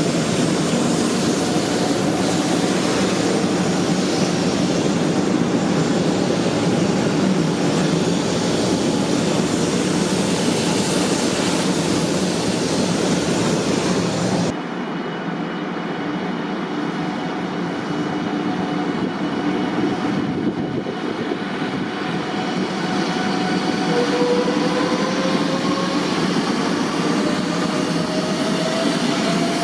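JR West 500 series Shinkansen (500 TYPE EVA) running past close by: a loud rushing with a low rumble. About halfway the sound cuts to a quieter take of the train on the far track, with a steady whine and, near the end, tones rising in pitch as it gathers speed.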